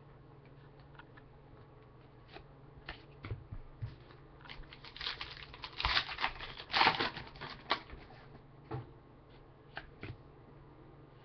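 A Panini Contenders basketball card pack's wrapper being torn open and crinkled, a dense stretch of crackling near the middle, with scattered light clicks and taps of cards being handled before and after.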